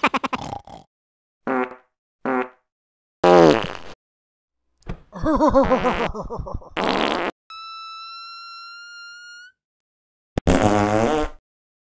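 A string of about eight fart sounds of different lengths, cut apart by dead silence: short blats and sputters, and near the middle one long, thin, squeaky fart held on a single note that rises slightly at its end.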